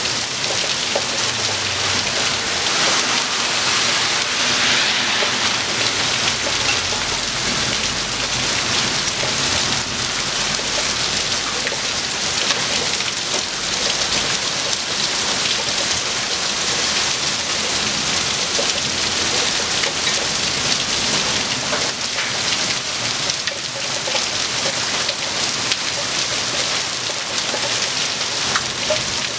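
Heavy thunderstorm rain pouring steadily, a dense even hiss of drops hitting hard surfaces.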